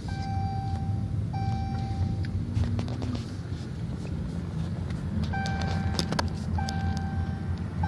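Inside a car driving slowly: a steady low rumble of engine and road noise. A repeating electronic beep, each about a second long with short gaps, sounds at the start and again in the second half.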